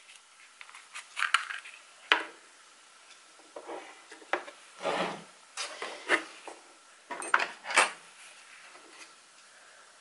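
A run of soft knocks, taps and scrapes from small kitchen utensils and containers. A silicone spatula scrapes meringue into a small cup, and a small jar of gel food colouring is picked up and handled.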